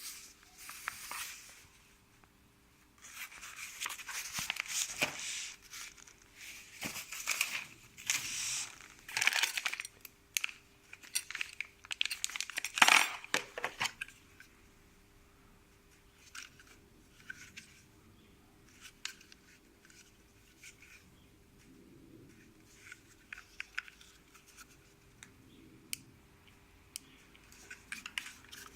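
Packaging being handled and unwrapped: bursts of crinkling, rustling and tearing over roughly the first half, then only faint scattered clicks and taps.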